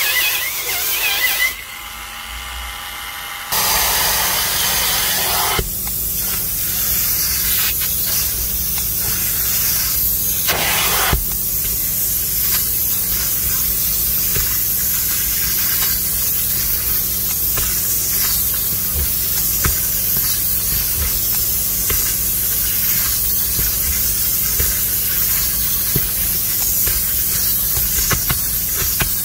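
Upholstery extractor running as its clear hand tool is drawn over a wet fabric car seat: a steady suction hiss over a low motor hum, with one brief louder burst about ten seconds in. It starts a few seconds in, after a short stretch of a handheld power brush scrubbing foam into the seat.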